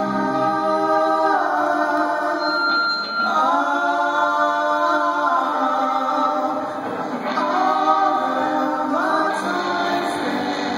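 Male voices singing into microphones, holding long notes of a second or two each, over a live rock band with guitars and drums.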